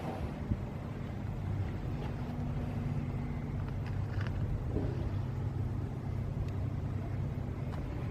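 An engine running steadily at an even low speed, a constant low hum, with a few faint clicks.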